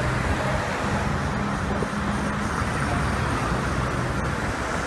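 Steady engine drone under a constant rushing noise, as heard riding aboard a moving vehicle.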